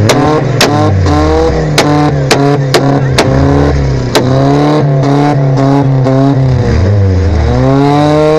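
Volkswagen Golf Mk2 engine revved hard again and again, the pitch climbing and dropping, with sharp exhaust bangs cracking out about twice a second. Near the end the revs fall away and then climb again.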